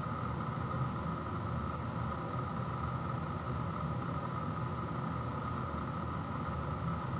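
Steady mechanical hum with a constant whine above it, unchanging throughout, from some running machine or appliance in the room.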